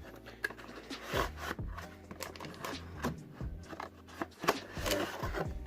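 Cardboard packaging being handled: irregular rubbing and scraping with light knocks as a cardboard insert is lifted out of a keyboard box. Faint background music under it.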